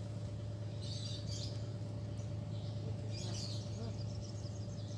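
Small birds chirping in two short bursts of quick, high calls, about a second in and again around three seconds in, over a steady low hum.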